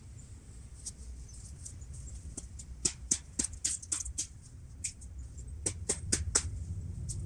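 Irregular sharp clicks and taps, in two clusters about three and six seconds in, over a steady low rumble.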